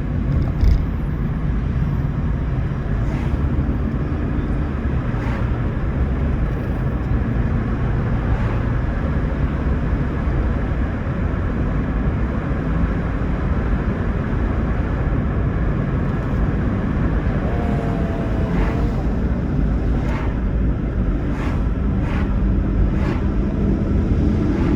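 Steady road and tyre noise from a Toyota Prius driving, with a few faint clicks and a brief wavering tone about three-quarters of the way through.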